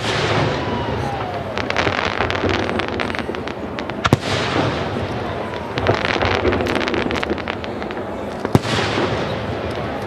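Aerial firework shells going off: two sharp bangs about four and a half seconds apart, with dense crackling from the stars in between.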